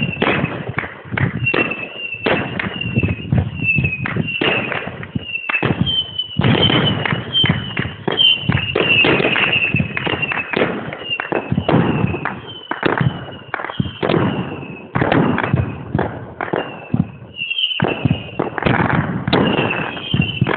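An aerial fireworks display: a dense run of bangs, several a second, with many short whistles that fall in pitch. The barrage lets up briefly near the end before resuming.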